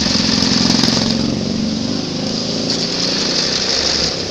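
Toyota home electric sewing machine running steadily at speed, stitching through denim: a motor whir with fast needle ticking.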